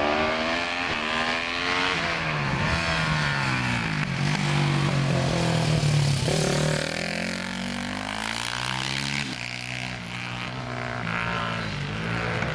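Supermoto motorcycle engine at racing revs, its pitch climbing and dropping with each gear change. It slows for a bend, is loudest as it passes close about halfway through, then accelerates away up through the gears, fading slightly.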